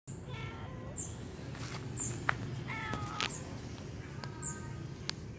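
Kitten meowing three times in short calls, with a small bird's high chirp about once a second and two sharp clicks, the loudest a little before halfway, over a steady low outdoor rumble.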